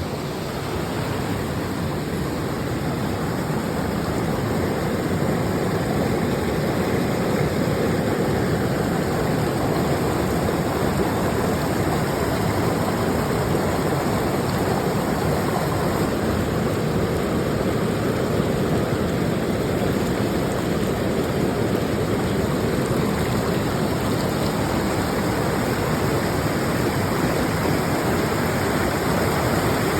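Rushing water of a high-mountain stream, a steady, unbroken roar.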